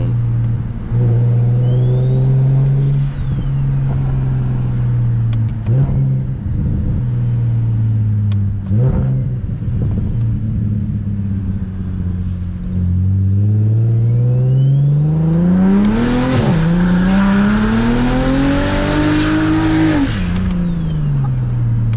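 BMW 335is with a single-turbo N54 inline-six and straight-piped exhaust, running steadily at first, then accelerating hard in the last third. The engine note climbs through a gear change, with a high turbo whistle rising alongside and a rush of air, before the driver lifts off and the revs fall away.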